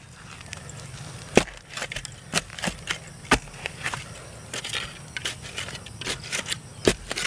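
A metal spade digging into moist, root-filled soil: several sharp strikes of the blade into the ground, with scraping and loose dirt thrown aside and falling between them.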